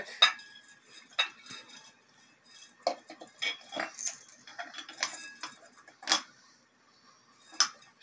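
Scattered, irregular clinks and taps of glass and metal as the glass bowl shade and fixture of a ceiling fan light are handled.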